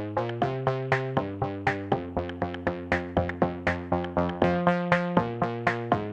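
Electronic background music: synthesizer chords that change every second or so under a quick, even rhythm of short plucked notes.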